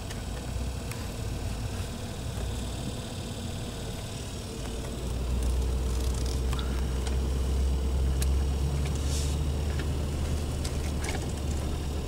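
Ford pickup truck engine heard from inside the cab, running low and then growing louder about five seconds in as the truck moves off. A few small clicks sound over it.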